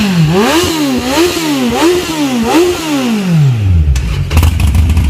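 Motorcycle with an aftermarket car exhaust tip being blipped, its revs rising and falling in quick throttle pulses, then dropping back to idle. About four seconds in, a lower, lumpier idle with a clattering tick takes over.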